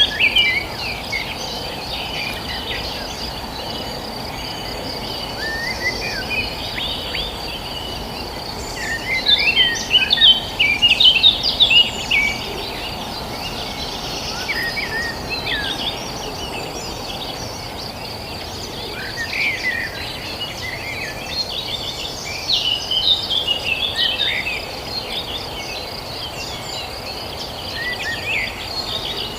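Several birds chirping in short flurries, busiest about a third of the way in and again toward the end, over a steady high insect trill, with low steady background noise beneath.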